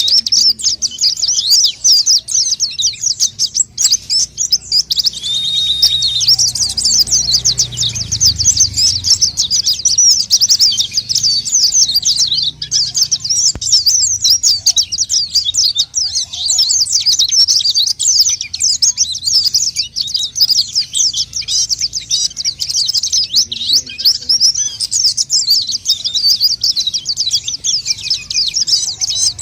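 White-eye (pleci) singing in full voice, a rapid, unbroken high twittering of quick chirps and trills, the kind of song used as a lure to call in wild white-eyes.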